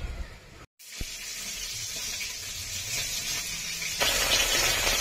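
Hot oil sizzling in a kadai, a steady hiss that jumps louder with crackling about four seconds in.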